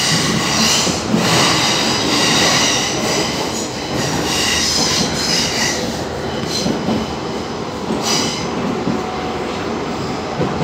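Athens Metro Line 1 train running, heard from inside the carriage: a steady rumble of wheels on track, with high-pitched wheel squeal coming and going. The squeal is strongest in the first half, fades about six seconds in and returns briefly near the end.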